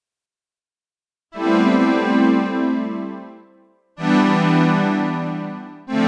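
HY-Poly software synthesizer playing its HY-Pad 01 preset: after about a second of silence, a sustained polyphonic pad chord swells in and fades over a couple of seconds, then a second chord sounds about four seconds in and fades, with a third starting right at the end.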